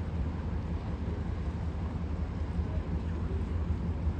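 Steady low rumble of a passing riverboat's diesel engine, mixed with the general hum of the river and city.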